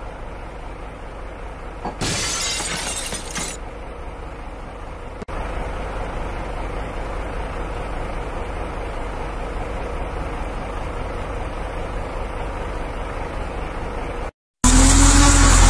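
A sudden crash about two seconds in, lasting about a second and a half, over a steady rumble. After that a vehicle engine runs steadily, and near the end a much louder engine revs, its pitch rising and falling.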